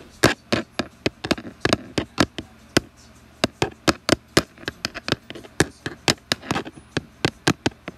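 A quick run of sharp taps or clicks, about three to four a second at uneven spacing.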